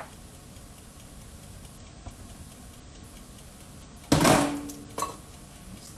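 A quiet steady hiss, then about four seconds in a sharp knock on the metal wok with a short metallic ring while shrimp are added from a mesh strainer; a lighter tap follows about a second later.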